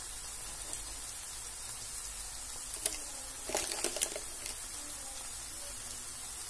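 Okra masala sizzling gently in a frying pan: a soft, steady, high hiss, with a few light clicks and taps around the middle.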